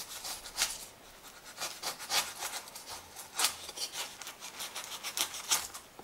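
Large knife sawing through a block of polystyrene foam in short, irregular scratchy strokes, cutting a sprue at an angle.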